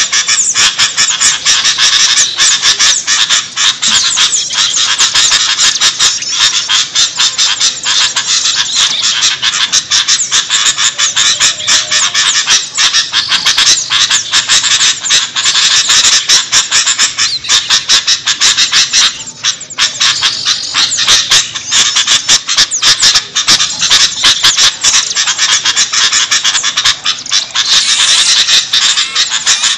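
Dense, loud chorus of many small birds chattering and calling at once, with rapid harsh notes that never pause: a mixed-species bird lure recording.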